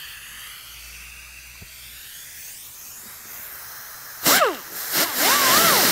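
A faint steady hiss, then about four seconds in a pneumatic cut-off tool starts loudly. Its whine dips and rises in pitch as the cutting wheel bites into the 1964 Corvette's fiberglass body panel.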